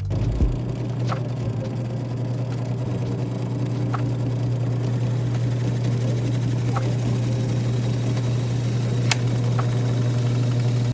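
A steady, unvarying low mechanical hum from a running machine, with a few faint ticks over it.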